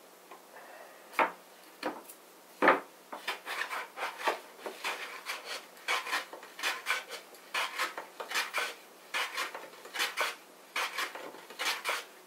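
Wood River bench plane pushed over a board in short, quick strokes, the blade just barely catching with a light "ch-ch" scrape on each pass because it is set very shallow. A few knocks come in the first three seconds, the loudest about two and a half seconds in.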